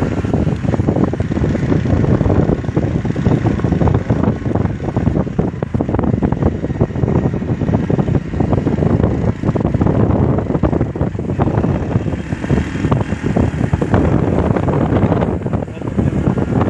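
Heavy wind buffeting the microphone over the steady rumble of a moving vehicle.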